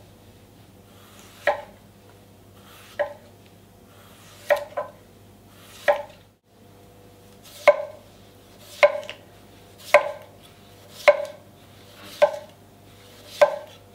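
Glestain gyuto knife with a dimpled blade slicing zucchini and then potato on an end-grain wooden cutting board. Each stroke ends in a sharp knock on the board, about one every second and a half at first, then about one a second after a short break in the middle.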